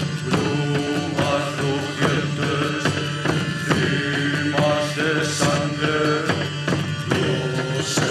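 Live folk music: a steady low drone under shifting melodic lines, with struck beats about once a second.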